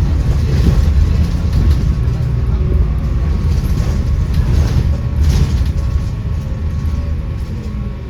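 Volvo B7RLE bus's six-cylinder diesel engine and ZF automatic gearbox running under way, with a heavy low rumble and the loud cooling fans, a sound the owner calls rather unhealthy. The sound eases off over the last few seconds.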